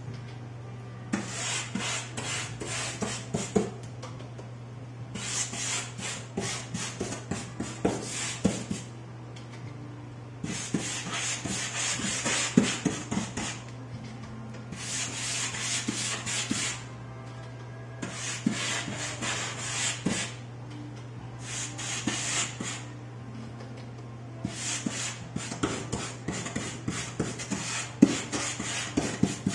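Stiff, short-bristle brush scrubbing back and forth over UART sanded pastel paper: a scratchy rasping in runs of a few seconds with short pauses between. The gritty sandpaper surface is wearing down the cheap brush.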